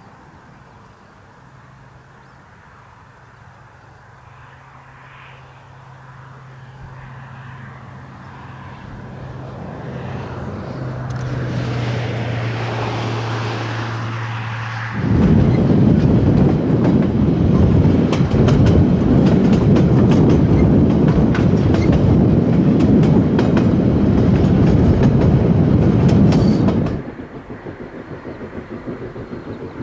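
1909 steam locomotive A 428 working hard with its train, its sound slowly growing louder over the first half. About halfway through a much louder, dense rushing noise sets in and cuts off suddenly near the end.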